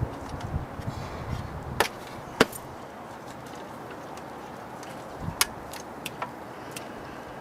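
Sharp clicks and light knocks of hands putting the HEI distributor cap and plug wires back together: two louder clicks about two seconds in, then a small cluster of clicks near the end, over a steady background hiss.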